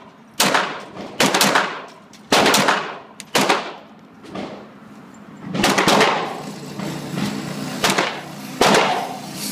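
.22 pistol shots, about ten at uneven spacing with some in quick pairs, each echoing off the concrete walls of an indoor range.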